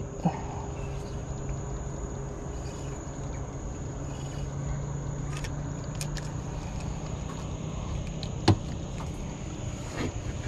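Night insects chirring steadily at one high pitch, over a low steady hum, with a few sharp clicks, the loudest about eight and a half seconds in.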